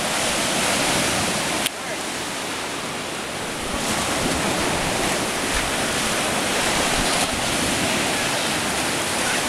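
Small surf waves breaking and washing up over a sandy beach: a steady rush of water. There is one sharp click about a second and a half in, and it runs a little quieter for a couple of seconds after.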